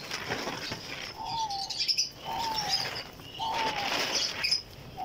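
Caged birds calling: a short, slightly falling call repeated about once a second, with higher chirps and bursts of noise between them.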